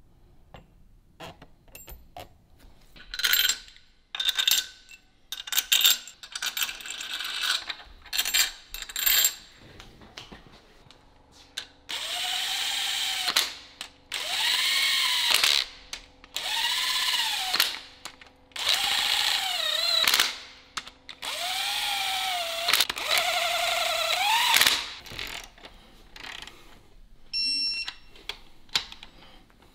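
A handheld power tool run in five short bursts of about two seconds each, its motor pitch rising then falling in each run. Before that comes a string of metallic clicks and ringing taps from tools and engine parts being handled.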